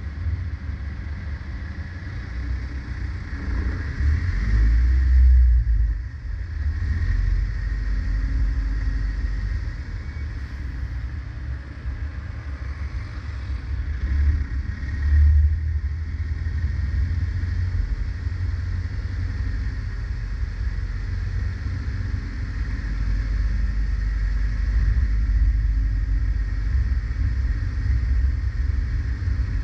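Low, steady rumble of a car driving through city traffic, heard from a camera mounted low on the outside of the car. It swells twice, about five and fifteen seconds in.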